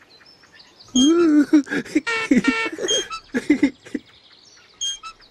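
High-pitched, childlike non-word vocal sounds (babbling, squeals and gliding 'ooh'-like calls) from a costumed Teletubby character, starting about a second in and dying away near the fourth second. Faint bird chirps run behind.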